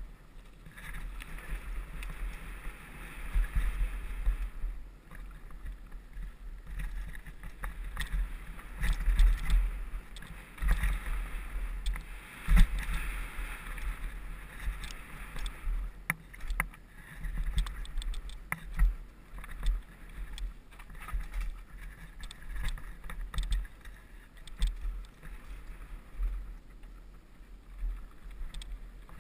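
Hardtail mountain bike riding fast down a dirt and gravel trail: a continuous low rumble of wind and tyres on loose ground, broken by frequent sharp rattles and knocks as the bike hits bumps.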